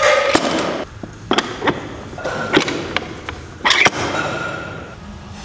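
Rubber bumper plates being slid onto a steel barbell sleeve, their steel hubs clanking against the sleeve and against each other in several sharp knocks, some with a short metallic ring.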